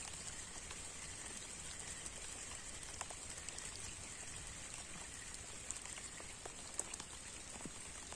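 Light rain falling on the surface of a pond: a soft, even patter with a few separate drop ticks.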